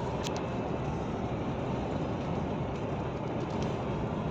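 Steady engine and road noise inside a long-haul truck's cab while it drives, with a faint click shortly after the start.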